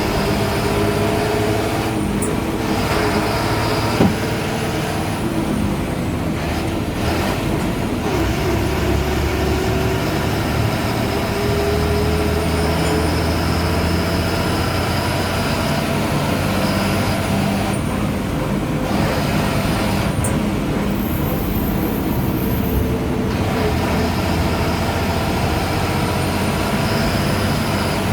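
Ashok Leyland BS4 bus diesel engine running under way, its note rising and falling, with a thin high turbo whistle rising and falling above it. One sharp knock about four seconds in.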